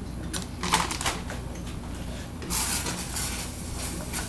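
Clicks and knocks of kitchen utensils and dishes, then a spoon scraping and stirring the taco-seasoned ground-beef mixture in a skillet on the stove.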